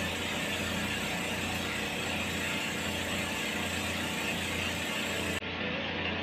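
Steady whir and hiss of dental cleaning equipment, the scaler handpiece and suction, running over a low steady hum during a teeth cleaning.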